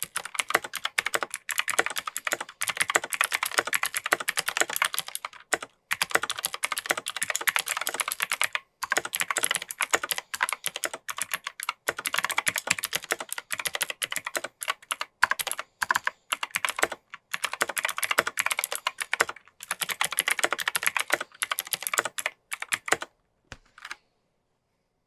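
Continuous typing on a mechanical keyboard with Kailh Pro Light Green clicky click-bar switches in an alumina plate and plastic case: a rapid, crisp clatter of clicks in runs with short pauses. The typing stops about two seconds before the end.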